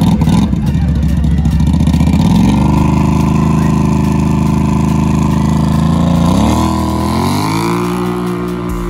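ATV engines at a drag-race start line: revved and held at a steady pitch, then about six seconds in the revs climb as the quads launch off the line, settling at a steady higher pitch.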